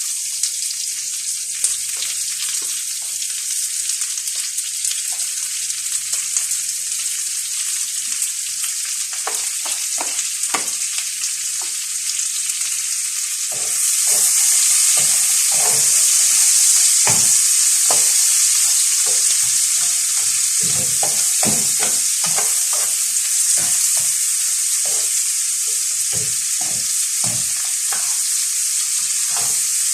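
Chopped garlic and onion sizzling in hot oil in a frying pan, with a utensil knocking and scraping against the pan from about nine seconds in as the mix is stirred. The sizzle grows louder about halfway through.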